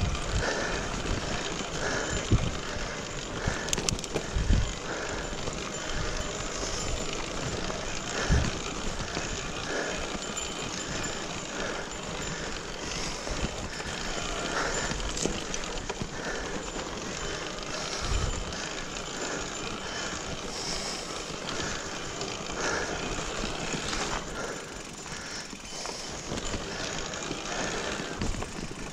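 Mountain bike rolling over a dirt trail: steady tyre and drivetrain noise with the bike rattling, and a few low thumps as it hits bumps.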